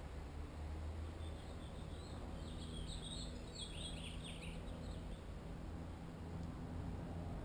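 A small bird chirping: a quick run of high-pitched twitters from about a second in to about four and a half seconds, over a steady low background hum.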